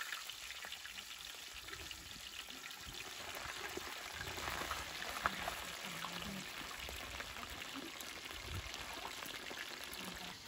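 Whole scored silver barb fish frying in hot oil in a steel wok: a steady crackling sizzle of bubbling oil, with one brief sharper crackle about five seconds in.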